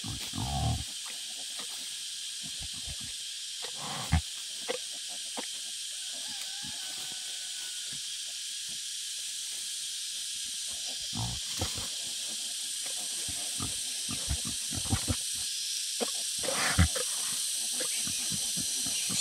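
Wild boar sow grunting and snuffling now and then while she roots in the dirt, in short sounds a few seconds apart, over a steady high hiss.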